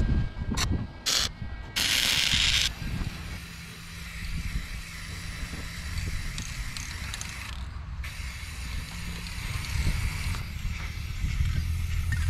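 Aerosol spray paint can in use on steel brackets: a loud hiss of spraying for about a second, about two seconds in, then a long stretch of light rattling from the can being shaken.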